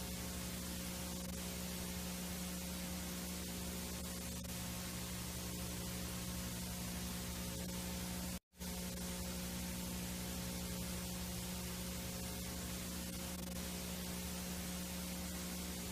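VHS tape playback noise: a steady hiss with a low electrical hum. It cuts out completely for a split second about halfway through.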